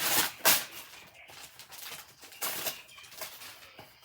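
Gift packaging rustling and crinkling as a present is unwrapped and handled, loudest in a burst at the start and again about halfway through.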